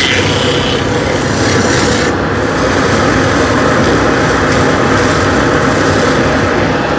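Sandpaper rubbing against a spinning wooden workpiece on a wood lathe, over the lathe's steady running.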